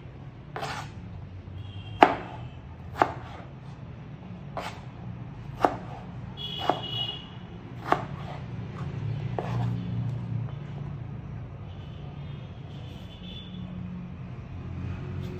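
Kitchen knife chopping raw potato into sticks on a plastic cutting board: about seven sharp knocks of the blade on the board over the first eight seconds or so, then it stops, leaving a steady low hum underneath.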